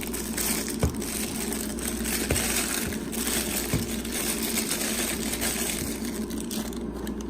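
Packaging crinkling and rustling as a camera lens is taken out and unwrapped, with a few light knocks. A steady low hum runs underneath.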